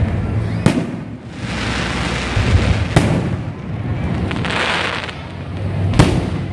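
Aerial firework shells bursting overhead: three loud bangs about three seconds apart, with a crackling hiss of the breaking stars between them.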